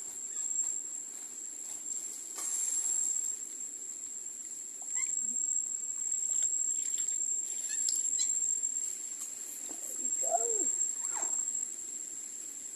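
A steady high-pitched insect drone, with a few short animal calls about ten seconds in.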